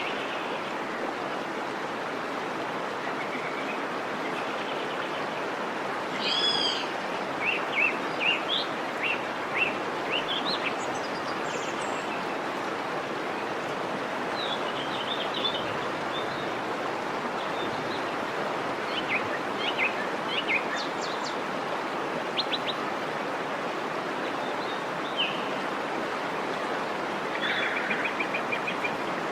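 Small birds chirping in short, scattered calls, with a quick trill near the end, over a steady rush of flowing water.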